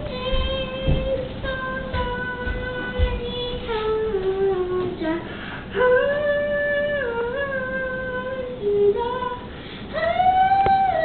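A young girl singing alone, holding long notes, stepping down in pitch about four seconds in and rising to a higher note near the end.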